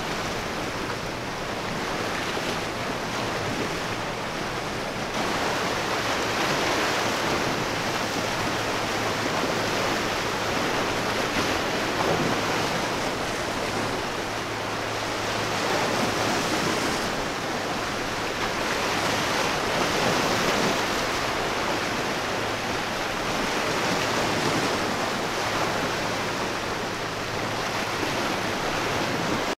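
Wind and choppy sea with breaking waves: a steady rushing noise that swells and eases every few seconds, over a faint steady low hum.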